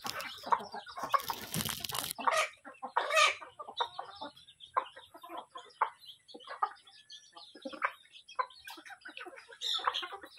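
A flock of chickens clucking as they feed, with many short scattered calls. About a second in there is a brief, louder noisy rustle.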